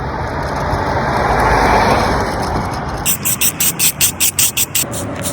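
Peeling: a continuous scraping rasp, then about three seconds in, quick rhythmic scraping strokes at about six a second.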